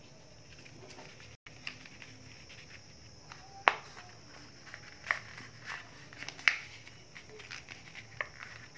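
Paper rustling and crinkling as hands fold and handle a paper dress pattern, with a few sharper crackles scattered through.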